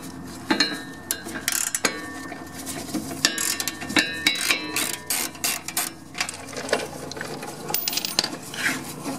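Hand ratchet clicking in short, irregular strokes as the castle nut on the front control arm's ball joint is worked loose.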